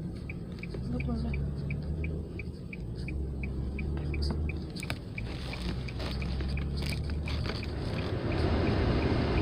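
Inside a moving car with the windows down: low road and engine rumble and wind noise, which grows louder near the end. A steady, even ticking runs through it at about three ticks a second.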